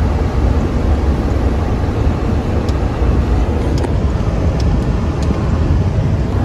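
Steady road and engine noise heard inside a moving car's cabin, heaviest at the low end.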